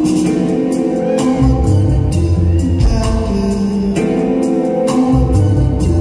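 Live band playing a song through the PA: electric guitar, bass and keyboard over a steady beat, with singing.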